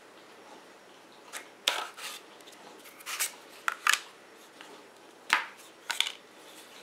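Thin wooden caddy panels clicking and tapping as they are slid out of their notched joints and set down on a paper-covered counter: about seven short, sharp knocks at irregular intervals.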